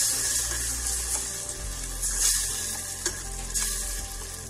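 Tomato sauce with fried onions and ginger sizzling in a stainless steel pot while a spatula stirs it, the sizzle swelling with the stirring strokes.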